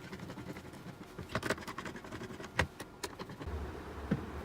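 Scattered light clicks and knocks of small plastic and metal parts being handled as a Keysight U1241B handheld multimeter is reassembled after teardown.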